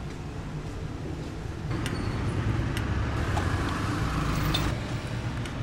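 Street ambience: a steady low rumble of passing traffic. In the middle, a few light clicks come over a slightly louder haze.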